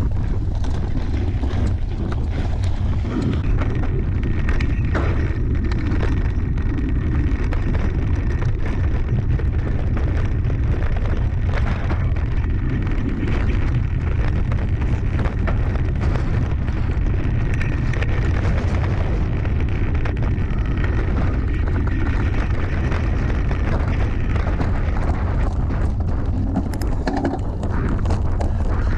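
Wind buffeting the microphone of a handlebar-mounted camera on a mountain bike ridden fast, a steady low rumble, over the noise of knobby tyres on gravel, grass and dirt trail with many small knocks and rattles from the bike.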